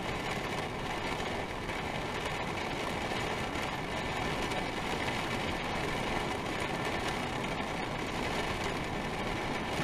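Heavy rain pouring down on an RV during a thunderstorm, heard from inside: a steady, even hiss with no thunderclap and no change in strength.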